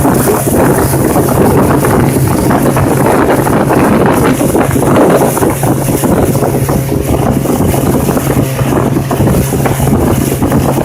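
A motorboat's engine running steadily with a constant low hum, with wind rushing over the microphone.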